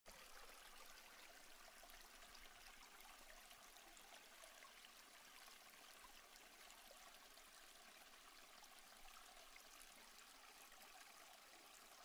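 Very faint, steady trickling-water sound like a small stream, with no distinct splashes or changes.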